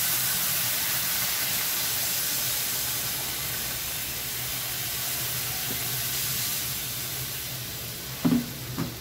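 Water poured from a steel kettle into a hot kadai of fried potatoes and spices, hissing and sizzling with steam as it hits the pan, fading slowly in the second half. Two short clinks sound near the end.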